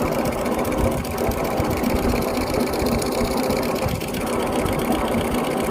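KIJ-135 ceiling fan coil winding machine running at a steady high speed with an even hum, winding wire for a fan coil.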